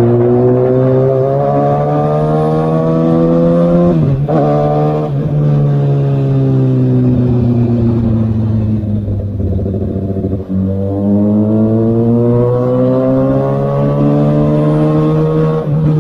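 2019 Kawasaki Ninja ZX-6R inline-four with an aftermarket Austin Racing exhaust, heard from on the bike while riding. The engine rises in pitch under acceleration, drops sharply at gear changes about four and five seconds in, falls slowly as the rider eases off, then climbs again from about ten and a half seconds in.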